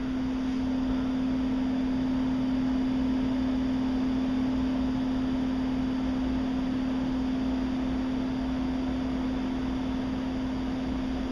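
A machine running steadily: an even rushing noise with a constant low hum that does not change.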